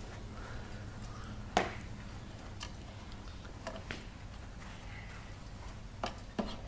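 Plastic toy golf clubs and bag being handled, giving about half a dozen scattered clicks and knocks, the sharpest about a second and a half in, over a low steady rumble.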